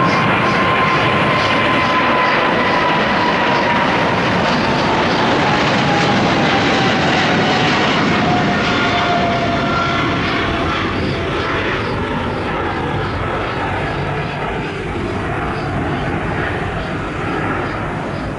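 Boeing 777-300ER's twin GE90-115B turbofans at takeoff power as the jet departs, a loud jet roar with a whining fan tone that slides steadily down in pitch as the aircraft passes and moves away. The roar fades slowly over the last few seconds.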